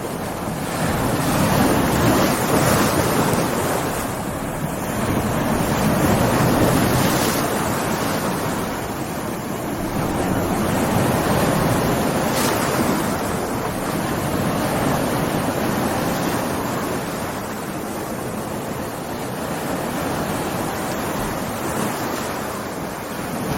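Stormy sea: heavy surf breaking and washing in slow surges every four to five seconds, with wind over the water.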